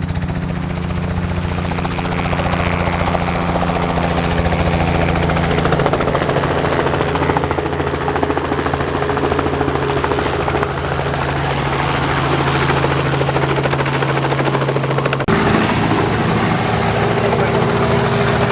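Tour helicopter running, a loud steady drone with several steady humming tones; the sound changes abruptly about fifteen seconds in.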